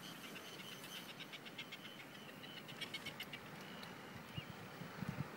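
Faint, rapid chirping from a small animal: a quick run of short, high notes that stops after about three and a half seconds, followed by a few soft, low thumps near the end.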